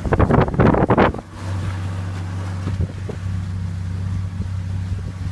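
Wind buffeting the phone's microphone for about a second, then cutting off into the steady low hum of the catamaran's motor running at an even cruising speed.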